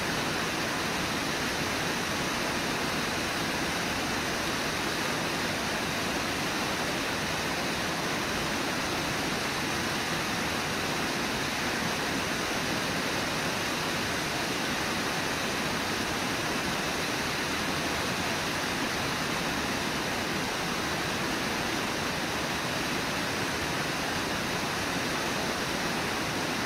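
Steady, unbroken rush of a waterfall, white water pouring over the lip of the falls.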